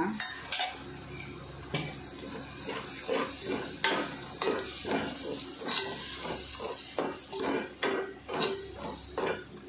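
A steel ladle stirs and scrapes thick masala against the side of a hammered metal pot, about two strokes a second, mixing freshly added yogurt into the frying onion-tomato base. A low sizzle of frying sits under the strokes.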